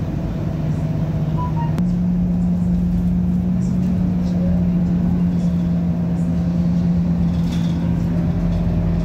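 Bus engine and drivetrain heard from inside the passenger cabin while moving: a steady low drone that steps up a little in pitch with a click about two seconds in, then holds steady. The uploader says it doesn't sound right and suspects an engine or gearbox problem.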